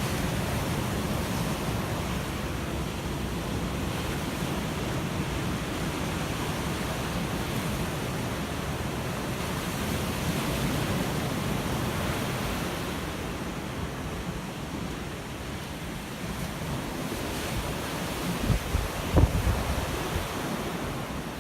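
Ocean waves washing on the shore in a steady surf that swells and eases. A few low thumps of wind buffeting the microphone come near the end.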